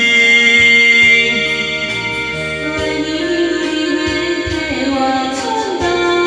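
Karaoke backing track of a Chinese pop ballad: sustained keyboard chords over a steady beat, with a wavering melody line coming in about halfway through.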